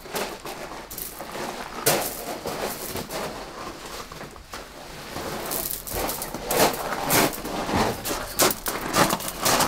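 Irregular crunching and scraping, with many short sharp clicks: footsteps on a gravel floor and a green plastic mat being lifted and handled.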